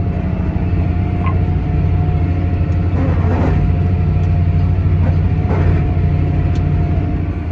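Farm tractor's diesel engine running steadily, heard from the driver's seat: a loud low drone with a steady whine above it.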